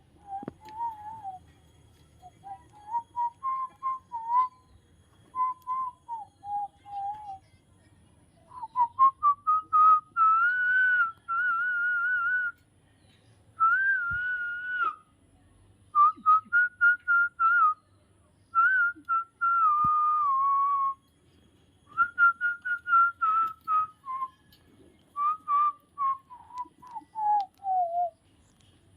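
A tune whistled in short phrases of gliding and quickly repeated notes, with brief pauses between phrases, ending on a falling run of notes.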